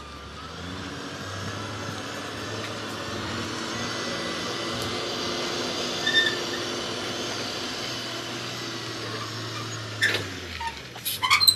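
Diesel engine of a semi truck hauling a shipping-container trailer running steadily under load as the rig creeps up a steep street. There is a short high squeal about six seconds in, and a few sharp knocks near the end.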